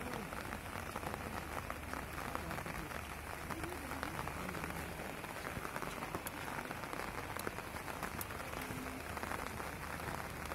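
Steady rain pattering, a dense crackle of many small drops.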